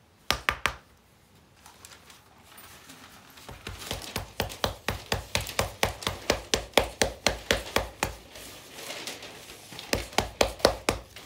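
Palms patting and slapping jowar (sorghum) rotti dough flat on a flour-dusted slab. A few sharp slaps come first, then after a lull the pats settle into a quick even rhythm of about three to four a second, with another run near the end.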